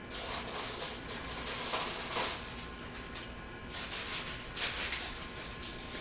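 Gusting snowstorm wind with fine blowing snow, a hissing noise that swells about two seconds in and again near the end.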